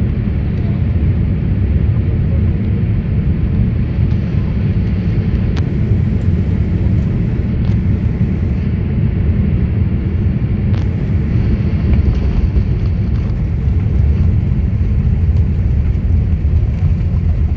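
Steady low rumble inside the cabin of a Boeing 787-8 airliner as it lands and rolls out along the runway.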